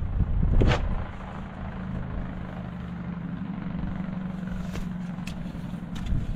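An engine running steadily at one pitch, with a single sharp hit a little under a second in.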